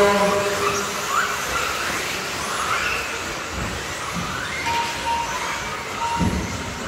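RC buggies racing: short motor whines rising in pitch as the cars accelerate, over steady tyre and running noise. From about two-thirds of the way in, an electronic beep repeats.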